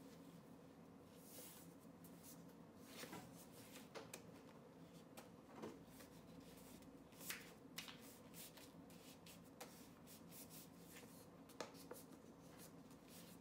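Faint rustling and crinkling of thick paper. It is being pressed and rubbed with the fingers against the bottom edge of a shoe last to crease it. Scattered small clicks and crackles sound over a low steady hum.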